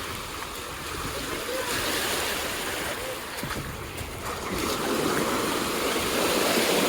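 Ocean surf breaking and washing up the beach, swelling louder twice.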